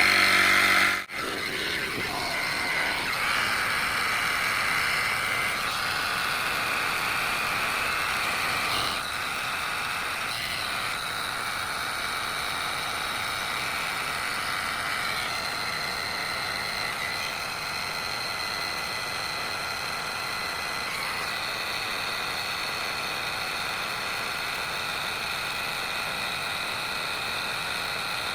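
EAFC battery-powered portable tire inflator's compressor running steadily while pumping up a car tire, a constant whirring buzz with a brief break about a second in.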